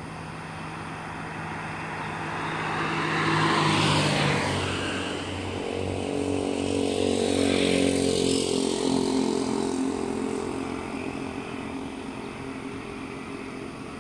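Two road vehicles drive past close by, the first about four seconds in with a drop in pitch as it goes by, the second around eight seconds in.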